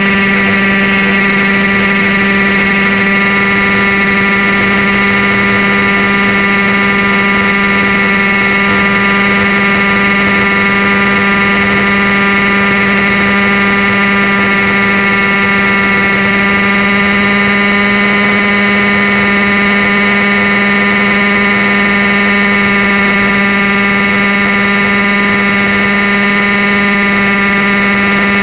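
Airstar International Mongoose RC helicopter's engine and rotor running steadily at flight speed, a loud, even whine with a slight rise in pitch about halfway through.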